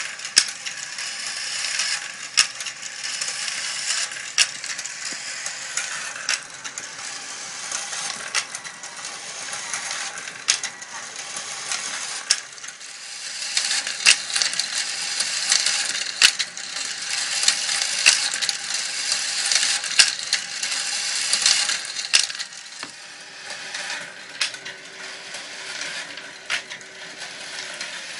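Homemade marble machine running: glass marbles rattle along wire tracks, with frequent sharp clicks and clacks as they drop and strike each other, over a faint steady hum. The clatter grows busier about halfway through, then eases off.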